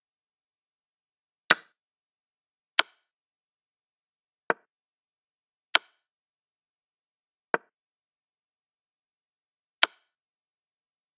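Chess board move sound effects: six short clicks, one for each piece set down, spaced one to two seconds apart. Four are sharper and louder (the capture and the checks), and two, the king moves, are softer.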